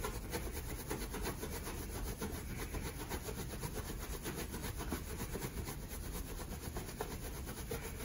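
A cloth towel rubbed briskly and without pause over an inflated balloon, a continuous run of quick rubbing strokes: the balloon is being charged with static electricity.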